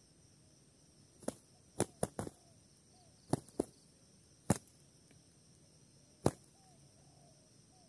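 Spotted doves scuffling on the ground, their wings striking: about eight sharp wing claps, irregularly spaced and some in quick pairs, over several seconds.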